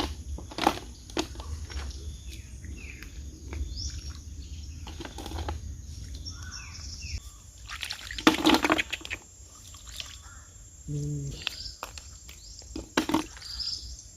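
Birds chirping against outdoor background noise, broken by irregular splashes, clicks and knocks, the loudest a noisy burst about eight and a half seconds in.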